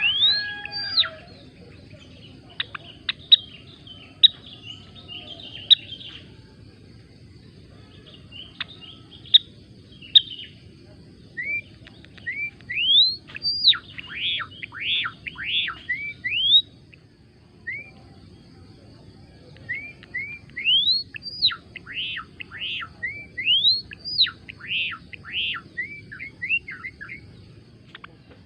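A gelatik belong, a small finch, singing in phrases of quick rising whistles and chirps, with short pauses between phrases, over a steady low background noise.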